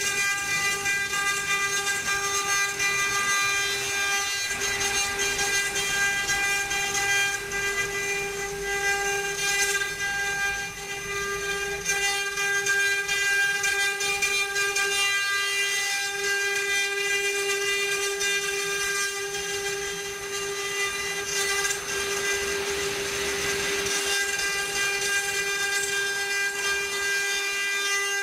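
Spindle of a wood-carving CNC router running with a steady whine that holds one pitch throughout.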